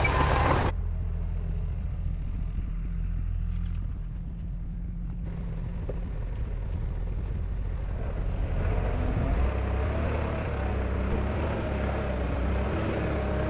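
Heavy diesel machinery engine running steadily with a deep rumble. A louder, brighter noise cuts off under a second in, and a busier mid-pitched engine note builds up again from about two-thirds of the way through.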